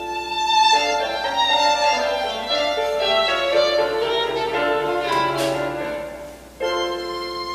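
Instrumental music sample played back through DML (distributed mode) flat panel speakers driven by Dayton Audio DAEX25FHE-4 exciters and picked up by a microphone in the room. Sustained notes and chords change throughout, with a fresh held chord near the end.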